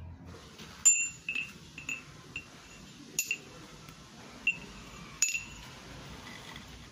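Short pieces of ribbed steel rebar clinking against metal: a string of about nine sharp, ringing clinks, the loudest about a second in and another just after five seconds.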